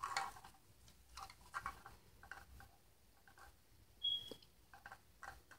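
Faint clicks and light taps of a glass mason jar cup with a metal screw lid and straw being picked up and handled, with a brief high squeak about four seconds in.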